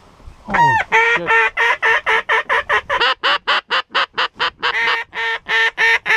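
Hand-blown waterfowl call sounded right at the microphone to a passing flock: a sliding opening note, then a fast, loud run of short quack-like notes, about five a second, with a brief break partway through.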